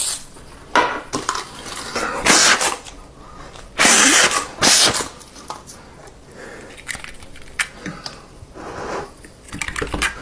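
A handful of short, scratchy scrapes and rustles, the loudest about four and five seconds in, as a match is struck on its matchbox and flares alight.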